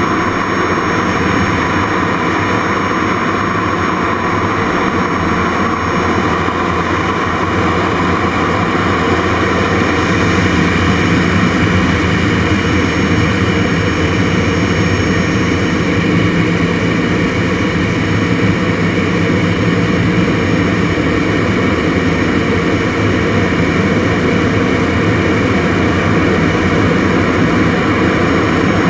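Steady jet noise inside the cockpit of a Jet Provost Mk5 in aerobatic flight: its Viper turbojet running with rushing airflow and a thin high whine, growing a little louder about a third of the way in.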